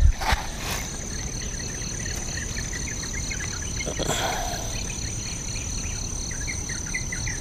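Insects calling from the grass: a steady high trill alongside a quickly pulsing one, with short repeated chirps joining from about six seconds in. There is a knock right at the start and a brief soft rustle about four seconds in.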